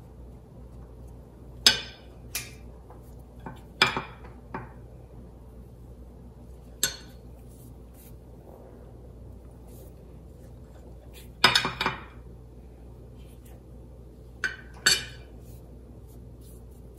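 Metal spoon clinking against a glass baking dish while ground beef filling is scooped out: about nine short, sharp clinks at irregular intervals, some in quick pairs.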